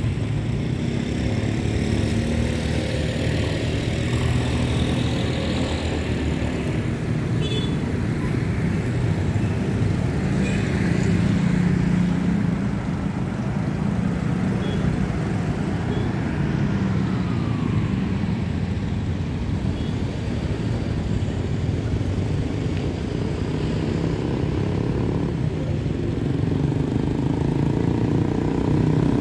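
Street traffic made up mostly of small motorcycles and scooters, their engines running as they ride past in a steady stream.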